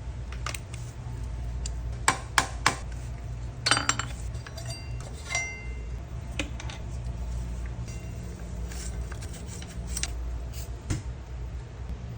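Metal clinks and taps of hand tools and motorcycle rear brake parts being handled during a brake pad change. There are three sharp clicks about two seconds in, a cluster of clinks near four seconds and a brief metallic ring a little later, over a steady low hum.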